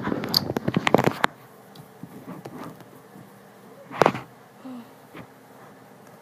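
Handling noises: a quick run of rustles and light knocks as a play doll is shifted about in its toy bed, then one louder rustle about four seconds in.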